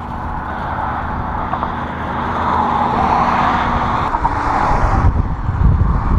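Road traffic passing close by, its tyre noise swelling and then dropping away sharply about five seconds in. Wind then buffets the microphone with a low rumble.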